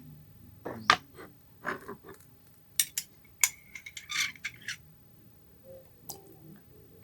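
A metal spoon clinking and knocking against a cup of garlic steeped in hot water, a string of separate clinks with a short ringing tone about three and a half seconds in.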